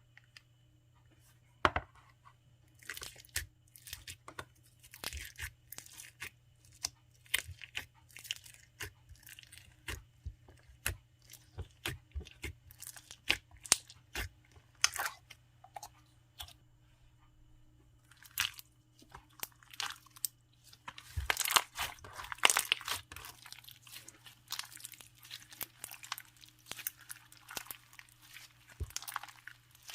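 Clear foam slime packed with foam beads, squished and stretched by hand. The beads crackle and pop in quick irregular clicks, densest about two-thirds of the way through.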